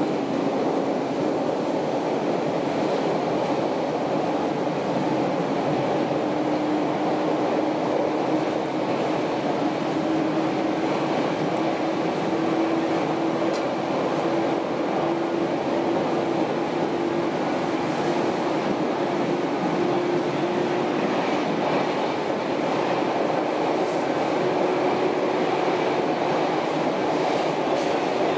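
413/455-series electric train heard from inside the passenger car while running: steady wheel and rail noise with the hum of its MT54 traction motors. The hum climbs slowly in pitch for about twenty seconds as the train gains speed, drops out briefly, then comes back.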